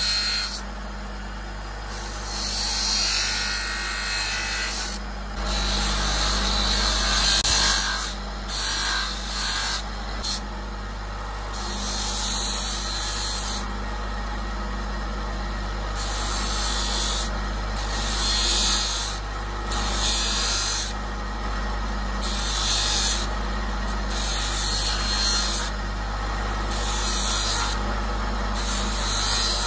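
Motor-driven abrasive wheel grinding a riveted wooden knife handle to shape: a steady motor hum under repeated rasping grinding passes. In the second half the passes come regularly, about one every second or two.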